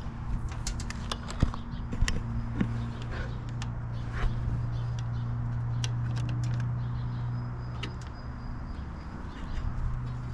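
Scattered light clicks and taps of a power cable being handled and laid along a motorcycle. Under them runs a low steady hum that swells about two seconds in and fades away near eight seconds.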